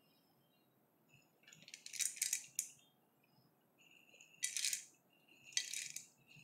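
Dried popcorn kernels rattling in a small glass bowl as fingers scoop through them, in three short bursts with quiet between.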